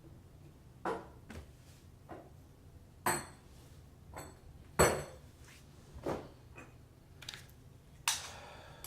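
Faucet parts and fittings clinking and knocking as they are handled and set down. There are about six sharp knocks at uneven intervals, the loudest a little under five seconds in, some with a brief metallic ring.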